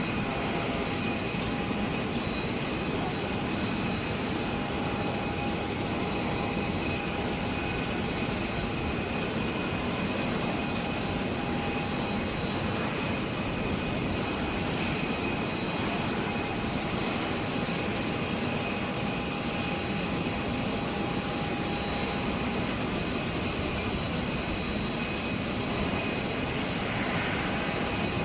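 Four Rolls-Royce Trent 900 turbofans of an Airbus A380-800 at high power on the takeoff roll: a steady jet engine noise with several fixed whining tones over it, neither rising nor falling.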